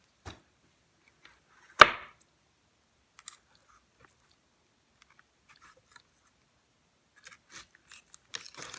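A knife cutting through a raw chicken's leg at the joint: scattered small crunching and crackling sounds, with one sharp knock about two seconds in and a busier run of small clicks near the end.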